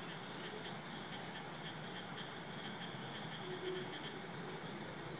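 Faint steady background hiss with soft, high chirps repeating about three times a second: insects chirping.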